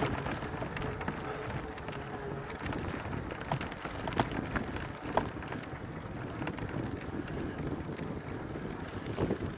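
Wind buffeting the microphone during an off-road ride on a mountain trail, with scattered sharp clicks and knocks from the bike rattling over rough ground.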